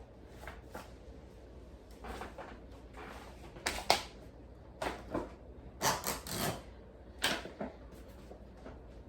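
Plastic freezer bags of raw chicken being squeezed and massaged by hand, crinkling and rustling irregularly, with a few knocks as the bags are handled on the counter, the loudest about four seconds in.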